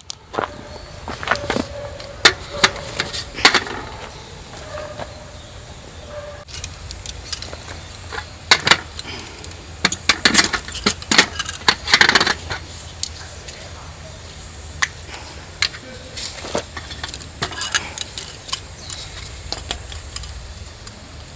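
Irregular clinks, knocks and rattles of objects being handled, busiest about halfway through, over a low steady background hum.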